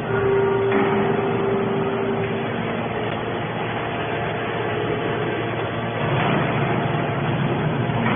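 Heavy scrap-handling machinery running steadily, with a held whine over the engine noise for the first couple of seconds.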